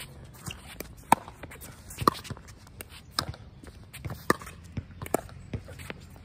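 Pickleball rally: sharp pops of paddles hitting the hard plastic ball about once a second, five in all, with fainter clicks of ball bounces and shoe steps on the court in between.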